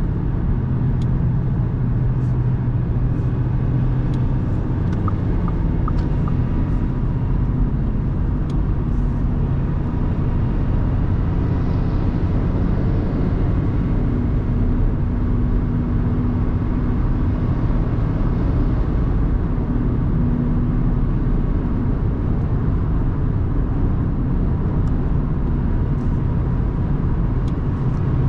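Steady driving noise from a 2024 Audi A3 Sportback 1.5 TFSI, a four-cylinder turbo petrol, on a motorway: an even low rumble of engine, tyres and wind, with a few faint ticks.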